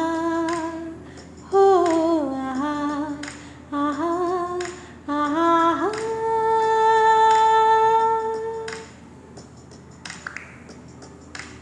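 A woman singing wordless, unaccompanied vocal phrases that bend up and down. About six seconds in she rises into one long held note, which stops near nine seconds. A few faint clicks follow.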